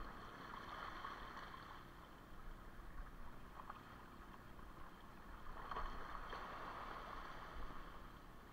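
Small waves lapping and washing over shoreline rocks, swelling twice.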